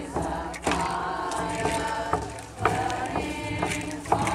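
A group of women chanting in long held, high notes, with a few sharp cracks at irregular moments.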